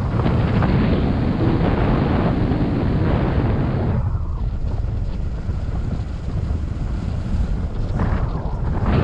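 Airflow buffeting the microphone in paragliding flight: a loud rush for the first four seconds that drops to a low rumble, with another gust near the end.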